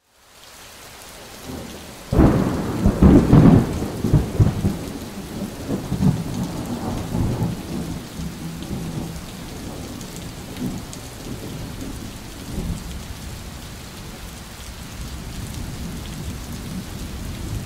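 Thunderstorm: rain falls steadily while a clap of thunder breaks about two seconds in and rumbles away over the following seconds.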